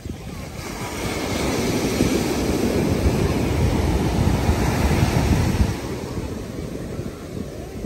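Sea surf breaking and washing up a sandy beach: the rush of water swells about a second in and falls away after about six seconds.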